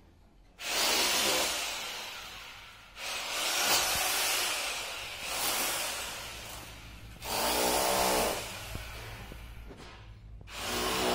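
A power tool running in four bursts. Each starts abruptly and dies away over a couple of seconds, and the last is still running at the end.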